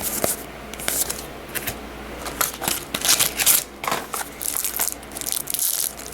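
Trading cards and their booster-pack wrappers being handled quickly, a run of short rustling and crinkling sounds as the cards are flipped through.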